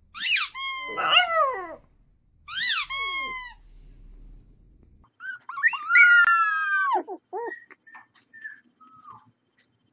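A puppy whining in three high cries that fall in pitch. After a cut, another puppy gives a longer whine followed by several short, thinner yips.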